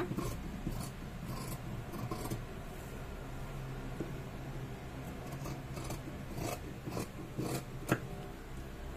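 Large tailoring scissors cutting through cotton dress fabric along the armhole line, in a series of irregular snips and slides of the blades, with one sharper click near the end.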